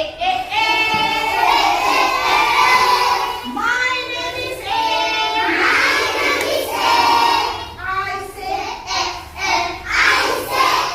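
A group of children singing a song together, with long held notes at first and shorter, quicker sung syllables later on.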